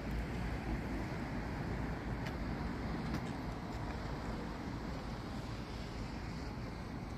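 Steady low rumbling outdoor city background noise, with a few faint ticks about two and three seconds in.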